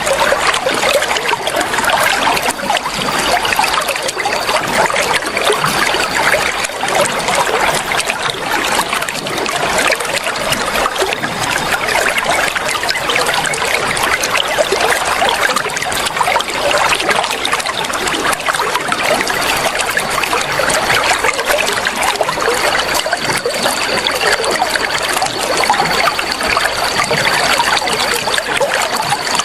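Flowing water trickling steadily, a continuous bubbling splash with no pauses.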